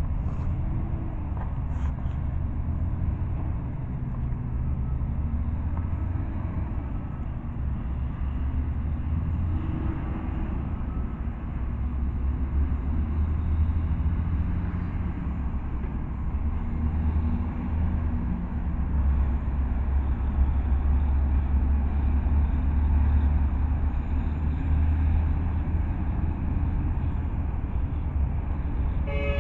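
Steady low rumble of road traffic, with a tanker truck driving along the road.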